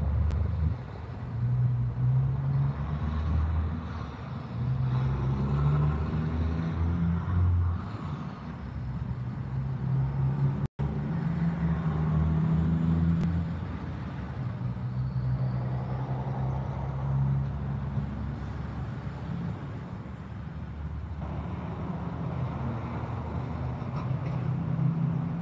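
Road traffic: trucks and cars passing, with the low hum of heavy engines rising and falling as they pull through. The sound cuts out for a moment about eleven seconds in.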